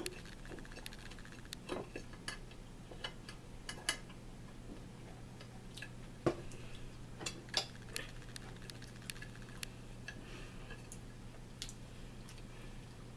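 Forks tapping and scraping on plates, scattered light clicks at an irregular pace, over a steady low hum.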